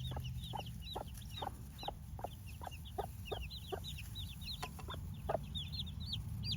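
A brood of newly hatched chicks peeping in many short, high chirps, with a broody hen clucking about twice a second.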